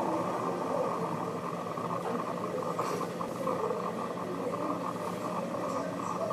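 Steady, even rumble of distant city and rail-yard noise heard from high above, with no distinct events standing out.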